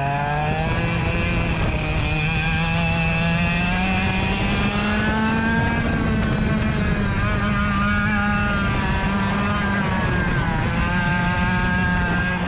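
Rotax DSB 100 cc two-stroke kart engine running hard under racing load. Its pitch climbs steadily for about six seconds, drops near the end as the revs fall, then climbs again.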